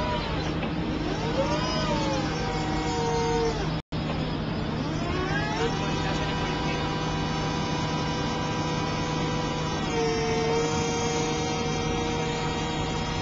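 Forklift engine running under hydraulic load, its pitch rising and falling as the drum clamp grips, lifts and turns a steel drum, then holding a steady higher whine for several seconds before dropping back. The sound cuts out briefly about four seconds in.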